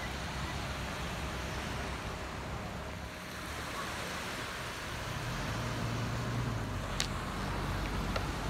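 Steady outdoor noise of wind and distant road traffic, with a low engine hum swelling about halfway through and a single sharp click near the end.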